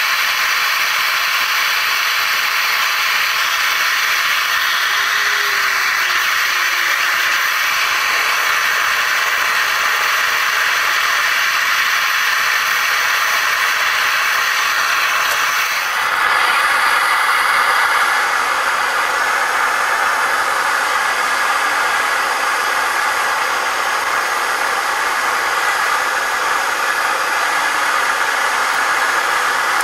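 Gas forge burner running with a steady, loud hiss while it heats a steel knife blade to a glow. The tone of the hiss shifts abruptly about halfway through.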